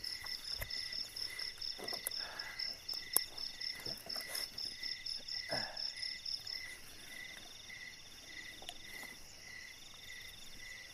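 Night insects calling, crickets among them: several overlapping chirps and trills. A fast high chirp of about four a second stops about two-thirds of the way through, while a lower chirp of about two a second carries on. A few rustles of gear being handled and one sharp tap about three seconds in.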